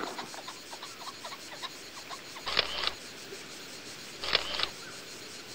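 Camera shutter clicks, heard twice about two seconds apart, each a quick double click.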